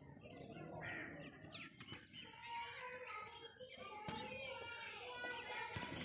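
Many birds chirping and calling over one another, short whistled notes and glides, with a few sharp clicks mixed in.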